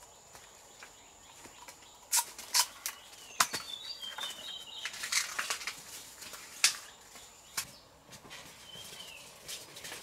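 Irregular sharp snaps and rustles, several loud ones among them, with short high bird chirps now and then. A faint steady high tone stops about two seconds in.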